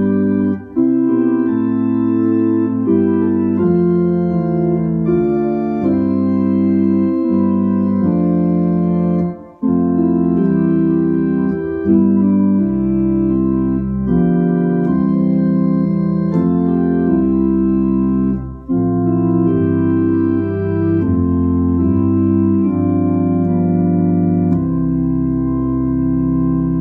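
Organ playing a hymn tune in sustained chords, with short breaks between phrases and a low bass line joining partway through. It ends on a long-held chord.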